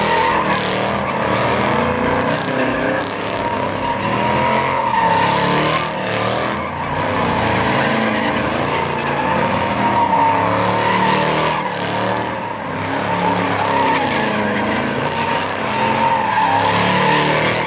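A car doing donuts: tyres squealing in a long, steady scream over a hard-revving engine, swelling and dipping every few seconds as it swings.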